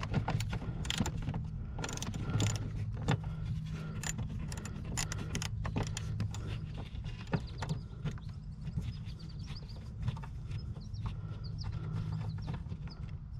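Small hand ratchet with a 7mm socket clicking in short, irregular runs as it backs out rusty kick-panel screws, over a steady low hum.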